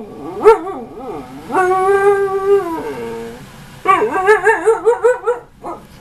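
Young Siberian husky "talking back", arguing for something she wants: a short yelp-like call, a long held howl-like note that drops in pitch at its end, then a fast warbling run of "woo-woo" notes and one last short call.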